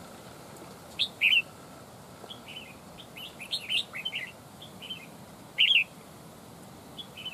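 Red-whiskered bulbuls calling: short, bright chirping notes scattered through, loudest as a pair about a second in and again about five and a half seconds in.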